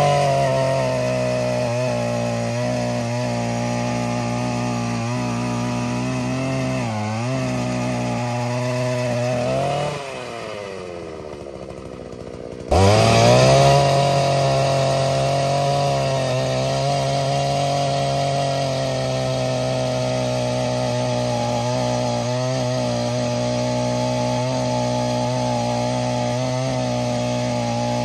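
Takyo TK3P push earth auger's 82cc petrol engine running at high revs as the spiral bit bores into the soil. About ten seconds in the revs fall away to a low idle for a few seconds, then the engine is throttled abruptly back up to full speed and drills on steadily.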